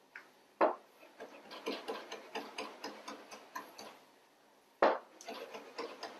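Chef's knife chopping fresh oregano on a cutting board: quick, even blade strikes about four a second, with a louder knock of the blade on the board about half a second in and another near five seconds, after a short pause.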